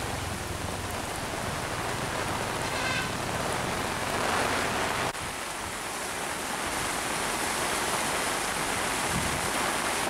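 Heavy rain falling steadily. About halfway there is a sudden break, and a similar steady rushing noise follows: floodwater of a swollen stream.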